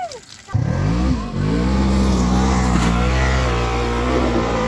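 Side-by-side UTV engine starting suddenly about half a second in, dipping briefly in pitch and then holding high, steady revs under load.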